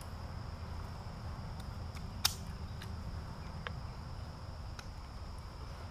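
A few short sharp clicks, one much louder a little over two seconds in, as the buckles of a water survival vest are fastened. A steady high insect drone and a low rumble run underneath.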